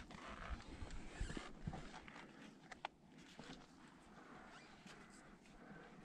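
A climber's hard breathing at high altitude, with a few sharp clicks and scrapes of gear or boots on rock.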